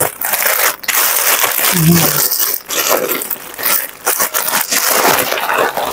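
Loud crinkling and rustling of plastic packaging as a plastic courier pouch is opened by hand and the clear-bagged curtains inside are pulled out.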